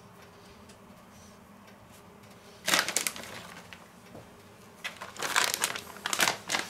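Plastic bag of grated cheese crinkling and rustling as it is handled: one loud crackle about three seconds in, then a run of crackles from about five seconds in to the end. Before that only a faint steady room hum.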